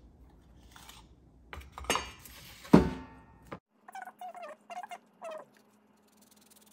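Small eggplants handled at a stainless steel colander and plastic cutting board: two sharp knocks, the second the loudest with a brief metallic ring. A little later come five short squeaky chirps.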